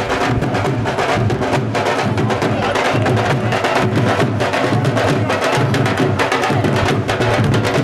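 Dhol drums played live in a fast bhangra rhythm: deep thumps from the bass heads under dense, sharp stick strokes on the treble heads, running without a break.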